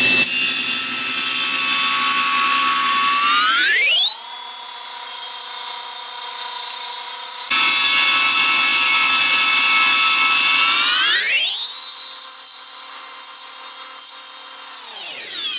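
SawStop table saw with a WEN 10-inch 40-tooth carbide blade cutting wood, in two cuts: a loud high whine that climbs in pitch about four seconds in and again about eleven seconds in, and drops in pitch near the end.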